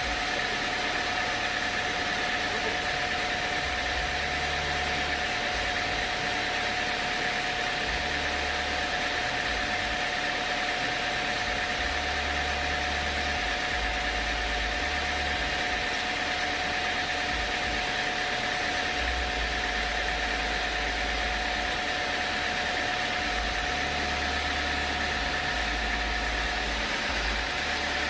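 Sawmill machinery running steadily with a constant whine, and a low rumble that comes and goes every few seconds.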